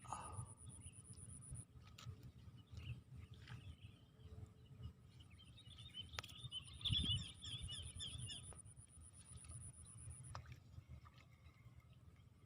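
Birds calling with quick repeated chirps through the middle, over a high, steady pulsing tone and low rumble, with one dull thump about seven seconds in.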